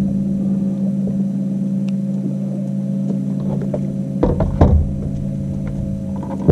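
Steady hum from the fishing boat's motor. A couple of thumps on the boat come just past four seconds in, and a low rumble starts with them.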